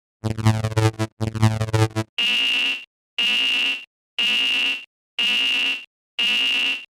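Synthesized level-crossing alarm sound effect. It opens with two short buzzing bursts with sweeping overtones, then gives five steady, high electronic beeps, about one a second.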